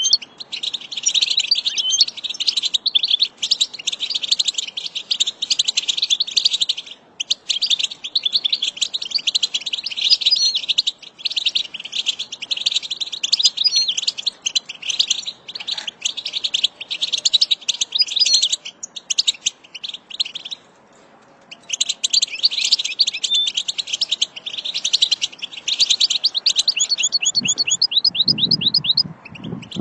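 European goldfinch song: fast, dense twittering and trills, broken by two short pauses, with a run of quick repeated notes near the end. A low sound joins in near the end.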